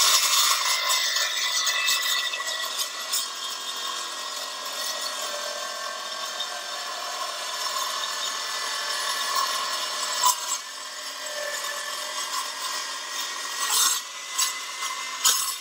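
Milwaukee M18 Fuel 2982-20 cordless metal-cutting circular saw with an 8-inch carbide blade cutting through the 1/4-inch web of a steel I-beam at full depth. The motor whines steadily under load over a harsh metal-cutting rasp. It eases off as the cut finishes near the end.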